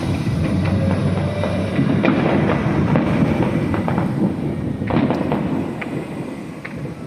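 Fireworks display going off: a dense, continuous run of booms and crackling, with several sharp cracks about five seconds in and near the end.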